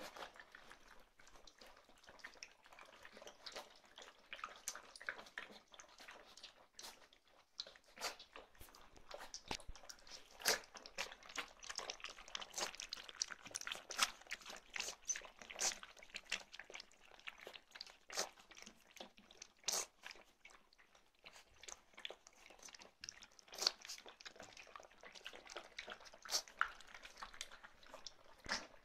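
Several puppies lapping milk from a round stainless-steel feeding dish: many quick, irregular wet licks and slurps.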